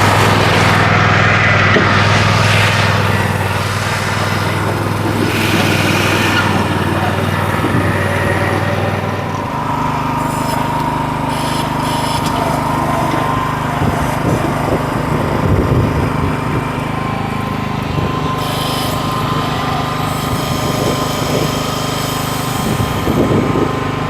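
Tractor diesel engine running steadily under backhoe work, its note changing about ten seconds in, with a few short knocks.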